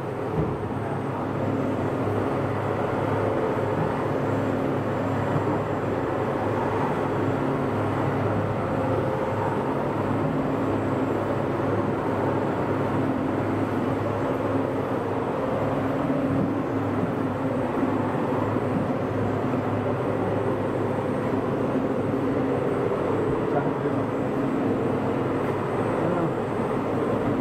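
Soft biscuit production line machinery running: the rotary moulder and conveyors give a steady, even mechanical hum with a low drone.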